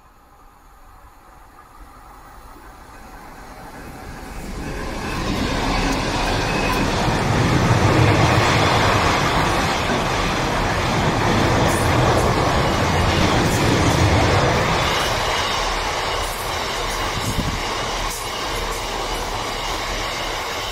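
Freight train of hopper wagons approaching and passing at speed, its wheels rumbling on the rails. It grows steadily louder over the first six seconds or so, then holds a loud, continuous rolling noise as the wagons go by.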